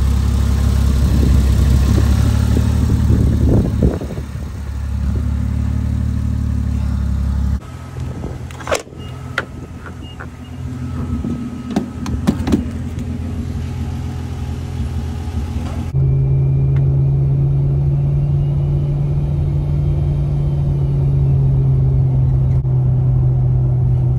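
Turbocharged Toyota VVT-i engine in a Jeep Cherokee running with the hood open. After about eight seconds the engine sound drops away and a few sharp clicks and clunks come from a fuel pump nozzle at the filler neck; from about sixteen seconds a steady low engine drone heard inside the cab while driving.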